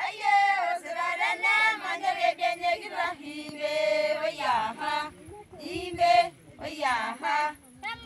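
Maasai group singing in call-and-response style: higher, bending chanted lines over a steady low drone of voices.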